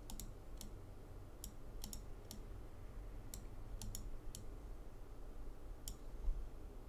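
Faint, irregular light clicks of a computer mouse, about a dozen spread over six seconds, over a low steady hum.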